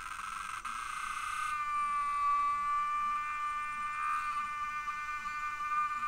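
Cicadas singing: a fast pulsing buzz that changes about a second and a half in to a steady, high whine.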